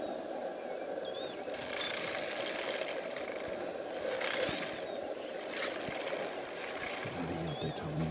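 Steady hum of idling vehicle engines, with a few brief sharp sounds and faint high chirps over it.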